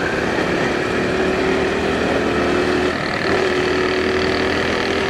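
Motorcycle engine running at a steady cruise, heard from the rider's seat with wind and road noise on the microphone. The engine note dips briefly about three seconds in, then carries on.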